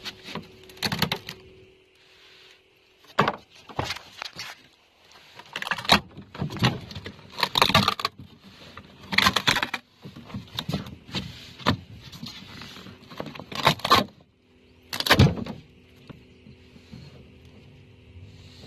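The rotten fiberglass-skinned floor of an old boat being ripped up by hand, in irregular noisy bursts of tearing and knocking, the loudest about fifteen seconds in, over a faint steady hum. The floor is rotten and has only one layer of fiberglass on top, so it comes apart as it is pulled.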